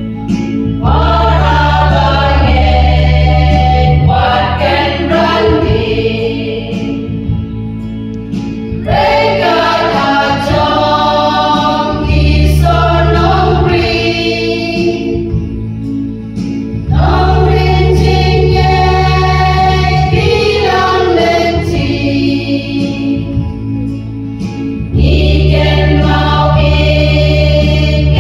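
Women's choir singing a hymn together into microphones, in phrases of a few seconds each. Low, sustained notes sound beneath some of the phrases.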